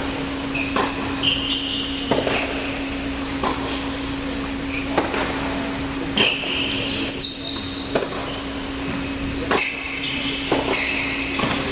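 Tennis balls struck by rackets on an indoor hard court, about seven sharp pops at uneven intervals, with sneakers squeaking briefly between them. A steady hum runs underneath, and the sound carries the ring of a large hall.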